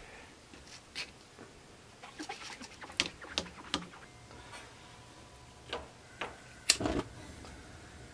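Light knocks and clicks of a kitchen knife slicing a puffball mushroom on a plastic cutting board, scattered through the first half, then a few sharper clicks and knocks about two seconds before the end.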